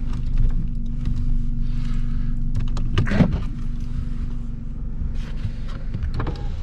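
Car engine running steadily at idle while the vehicle is backed up slowly. There are scattered light clicks and one brief louder sound about three seconds in.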